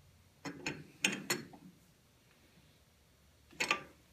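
Short metallic clicks and clanks of a lathe's 4-jaw chuck being worked by hand, several from about half a second to a second and a half in and one more near the end.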